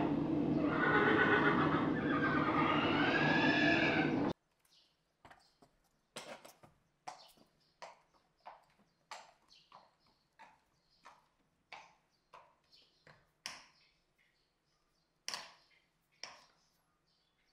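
A horse whinnying, the loudest sound, cut off abruptly about four seconds in. After it comes an irregular run of sharp clicks and knocks, roughly two a second.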